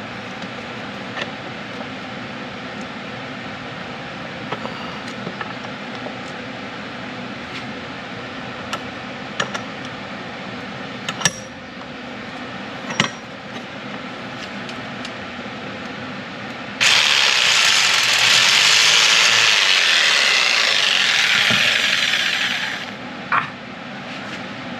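Scattered clicks and taps of tools on aluminum strap trim. About 17 seconds in, a power tool cutting the metal starts abruptly with a loud, even hiss, runs for about six seconds and fades out.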